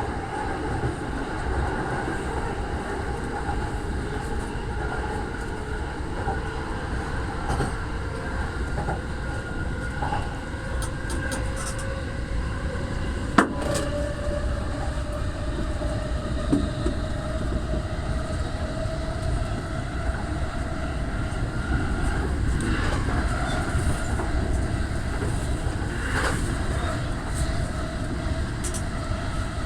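Keihin-Tohoku Line commuter train heard from inside the car while running: a steady rumble of wheels on the rails with an electric motor hum that rises slightly in pitch about halfway through. A single sharp click comes about a third of the way in.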